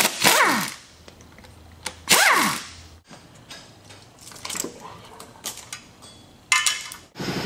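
Pneumatic air ratchet run in two short bursts to back out intake manifold bolts, each whine falling in pitch as the tool winds down. Then light clicks of metal parts being handled, and a short burst of noise near the end.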